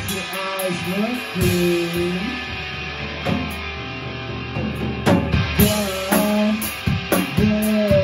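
Electric guitar and drum kit playing rock music together in a live band rehearsal; the drum hits come thicker and more often from about five seconds in.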